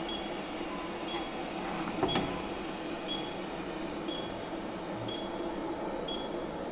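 Steady machine hum from a zirconia sintering furnace, with a faint high tick about once a second and a single knock about two seconds in.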